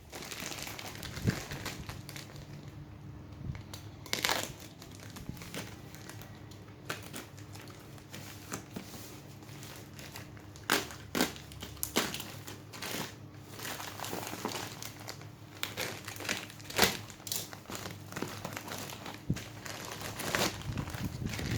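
Plastic parcel packaging being torn open and handled, crinkling and crackling in irregular bursts, over a faint steady hum.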